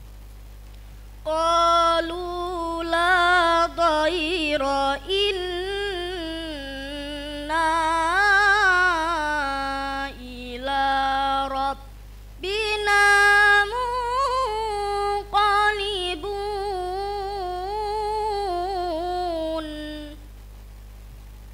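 A girl's amplified voice reciting the Qur'an in the melodic qiraah style, long ornamented phrases held on sustained, wavering notes, with a short breath pause about halfway. A steady low electrical hum runs underneath.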